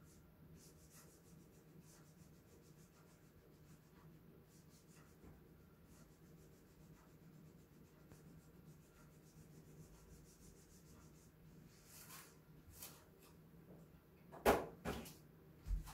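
Quiet room with a faint steady hum and light scratching and rubbing. Near the end come a few scrapes, then a short cluster of sharp knocks and a low thump, like objects being handled.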